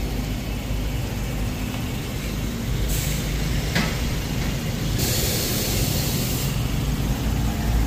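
Steady low engine rumble, with two bursts of compressed-air hiss, a short one about three seconds in and a longer one about five seconds in.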